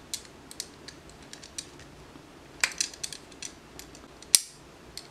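Small metal clicks and taps as a SmallRig aluminum GoPro cage is handled and a microphone adapter holder is fitted to its side, with a cluster of clicks a little past halfway and one sharp click near the end.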